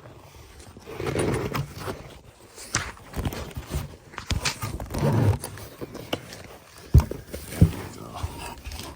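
A soft pistol carrying case being handled and unzipped, with fabric rustling and scraping. Near the end come two sharp knocks a little over half a second apart, the loudest sounds.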